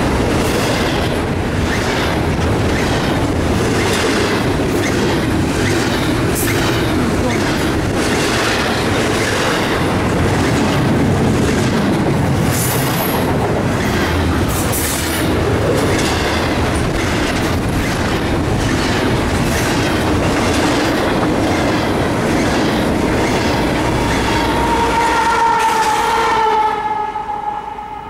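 Double-stack intermodal freight cars rolling past close by: a steady rush of steel wheels on rail with regular clickety-clack over the rail joints, and a brief high wheel squeal midway. Near the end, as the last car passes and the rolling noise falls away, a distant horn sounds a steady tone.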